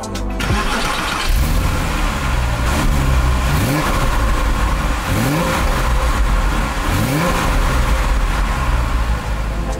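Porsche 911 Carrera 4S (996.2) 3.6-litre flat-six running at the exhaust, idling and blipped several times, each rev rising and falling back to idle.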